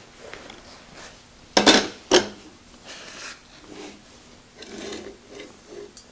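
An electric motor is set down and shifted on a steel motor-mount plate: two loud metal clanks about a second and a half and two seconds in, then softer knocks and scraping as it is slid into position.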